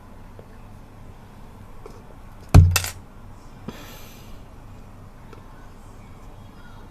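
A hard object knocks down sharply on a hard surface, one loud thud with a brief ringing clink right after, followed about a second later by a short rustle.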